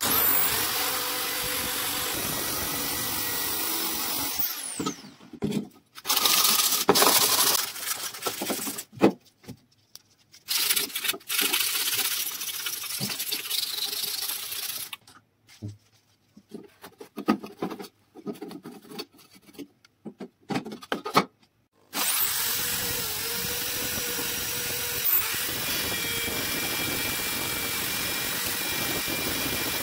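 Electric drill spinning a wire brush wheel against a rusty sheet-steel heater part, a steady run that stops after about four seconds. Then comes a long stretch of stop-start scraping and rubbing on the steel, and from about two-thirds of the way in the drill runs steadily again with a sanding disc on the metal.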